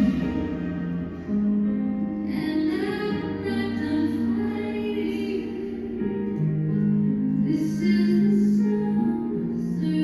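Music: a slow melody of long held sung notes.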